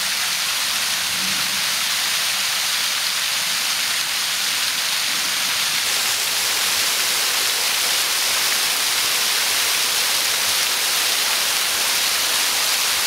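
Waterfall with a good flow of water, a steady rushing noise.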